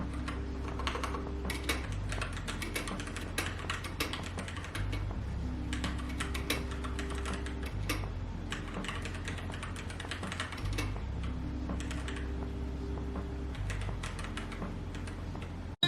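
Typing on a keyboard: a steady, irregular run of key clicks over soft background music with slow, sustained chords.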